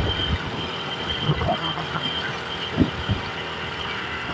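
Steady road noise of a moving vehicle, engine and tyres, with irregular low thumps and a thin steady high tone running over it.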